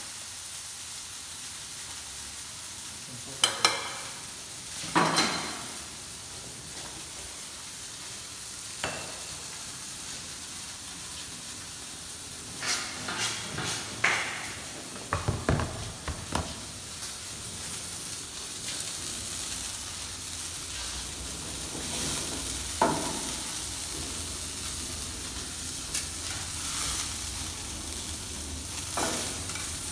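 Food frying in hot oil in a pan, a steady sizzle, with occasional clinks and knocks of metal tongs against steel cookware.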